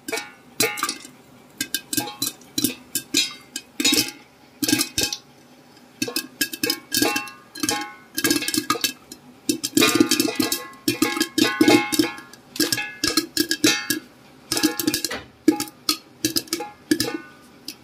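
Popcorn kernels popping inside an aluminium cooker pot covered with a steel plate: irregular sharp pops, each ringing briefly off the metal, busiest from about eight to twelve seconds in. The popping marks the kernels cooking on a low flame, before it dies away.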